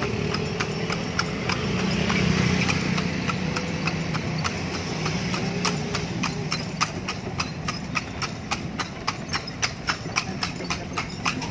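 Hooves of a tartanilla carriage horse clip-clopping on an asphalt street as it pulls the carriage. The beat quickens from about two or three steps a second to about four or five a second around halfway through.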